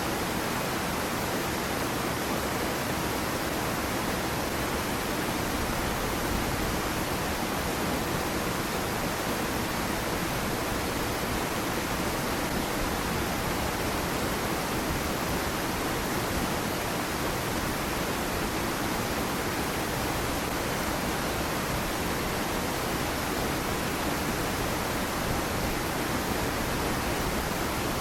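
A small waterfall pouring into a stream pool, a steady, even rush of falling water.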